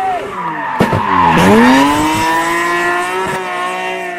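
BMW S54 3.2-litre straight-six race engine at high revs. A sharp crack about a second in is followed by the revs dropping steeply, then climbing steadily again under throttle, with a burst of tyre squeal as the car slides.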